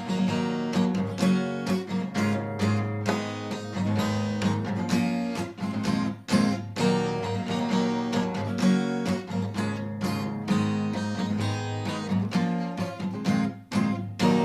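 Acoustic guitar strummed in a steady rhythm, chords ringing between strokes: the instrumental close of the song after the last sung line.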